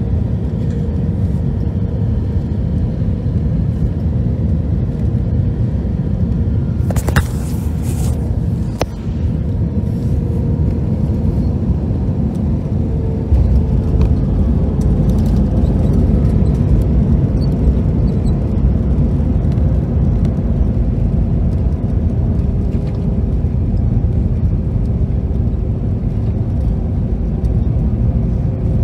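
Cabin noise of an Airbus A321-231 landing, heard from a seat behind the wing: a steady roar of the IAE V2500 engines and rushing air, with a few sharp knocks around a third of the way in. About halfway through, the roar turns louder and deeper as the airliner touches down and rolls out with its spoilers raised.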